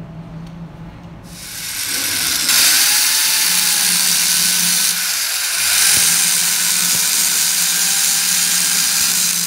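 A steady low hum, then about a second in an angle grinder starts grinding the steel splines of a pinion shaft. It makes a loud, continuous hissing grind, its whine dipping now and then as the disc bites.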